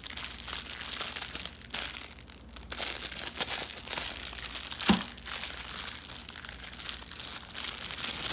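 Packaging crinkling and rustling as a wristwatch is unwrapped by hand, with one sharp knock about five seconds in.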